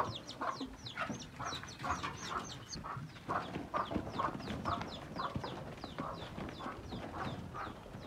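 Farmyard chickens clucking, with a busy run of short high chirps, several a second.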